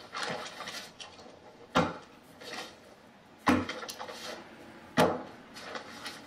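Three sharp knocks, about a second and a half apart, over fainter background sound.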